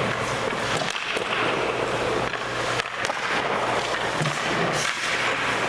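Hockey goalie's skate blades scraping and carving on the ice as he drops and pushes side to side across the crease, with a few short knocks from pads or stick on the ice, over a low steady hum.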